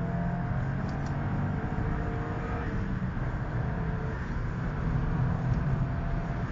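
Subaru Impreza's flat-four engine running steadily under way, heard inside the cabin over road and tyre rumble, its pitch drifting up and down a little.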